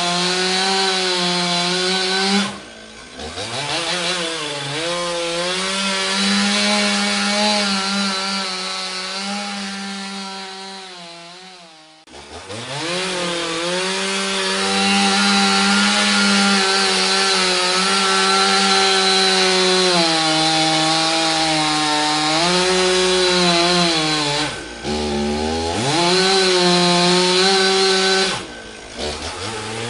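Chainsaw running at high revs, its engine note dropping and climbing back about four times: near the start, a longer sag down to a low point around the middle, and twice near the end.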